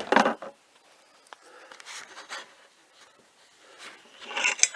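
Scraping and rubbing of an RV compartment door being fitted into its opening. A loud scrape comes just after the start, then faint clicks and rustling, and near the end another rub ending in a sharp click.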